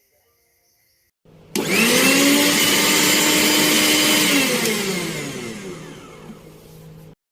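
Suruchi Elantra 800-watt mixer grinder's motor switched on and spinning up fast to a steady high whine. After about three seconds it is switched off and winds down, falling in pitch, until the sound cuts off abruptly.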